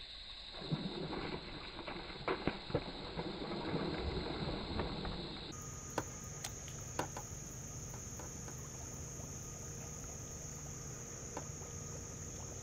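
A soft-plastic Ribbit toad lure being reeled across the water's surface, churning up light splashes and spatters, with scattered small clicks. A steady high-pitched whine sits underneath and steps higher about halfway through.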